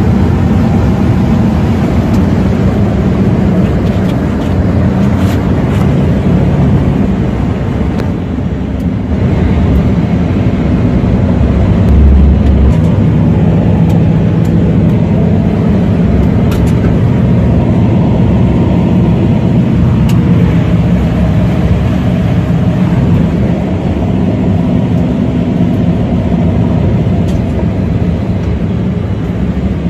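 Steady engine drone and road noise heard from inside a vehicle's cab while driving at an even speed, with a brief low thump about twelve seconds in.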